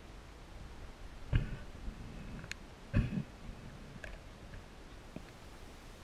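A few dull knocks heard underwater, two louder ones about a second and a half apart and some fainter clicks, over a low hiss.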